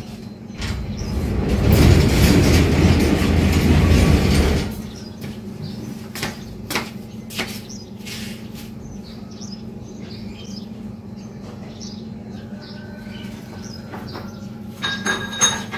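Metal sliding front gate rolled open along its track: a rolling rumble that swells and dies away over about four seconds. A few scattered clicks and knocks follow, with a couple of sharp ticks near the end.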